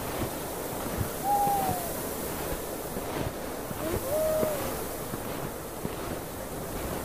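Snowstorm wind blowing steadily, with two short wolf howls, each rising then falling, about a second in and about four seconds in.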